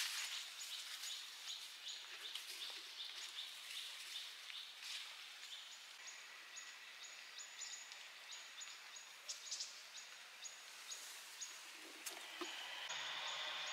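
Faint outdoor ambience with birds giving high, rapidly repeated chirps over a soft background hiss.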